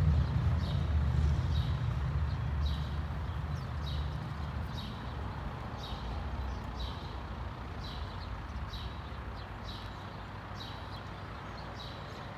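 A small bird chirping over and over, a short high chirp about every 0.7 seconds, over a low rumble that fades away.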